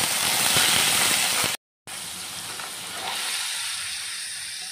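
Paneer cubes dropped into hot ghee in a pan hit with a loud sizzle. After a brief gap about a second and a half in, the frying goes on as a steadier, quieter sizzle.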